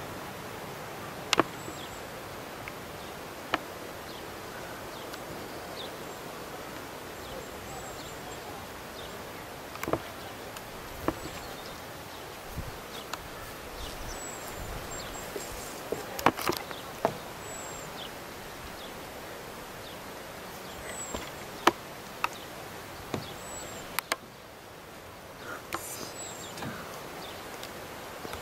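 Outdoor ambience: a steady hiss, with scattered sharp clicks and a few faint, short, high chirps.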